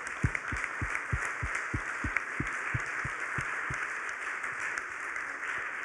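Audience applauding steadily. A low, close thumping about four times a second runs under it for the first few seconds and then stops.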